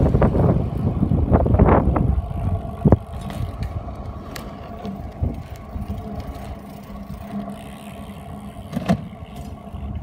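BMX bike riding on asphalt, with a heavy low rumble over the first two seconds, then a steady low hum and a couple of sharp knocks, one about three seconds in and one near the end.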